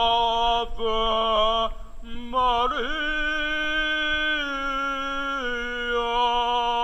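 A single voice singing long, chant-like held notes. The pitch steps up a little after about two and a half seconds and drops back to the first note about five and a half seconds in.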